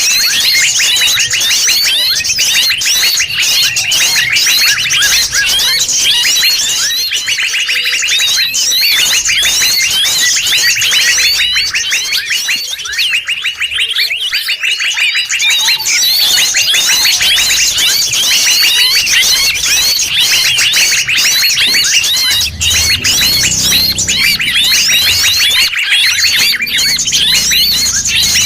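Bird-trapping lure recording: a dense, noisy mix of many forest birds calling at once, with rapid high chirps overlapping without a break.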